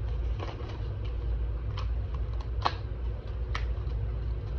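A few light, sharp clicks and taps from handling packets of under-eye masks, over a steady low hum.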